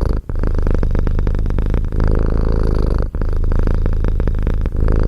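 Domestic cat purring loudly, close up: a fast, even rumble that breaks off briefly about every one and a half seconds as the cat breathes.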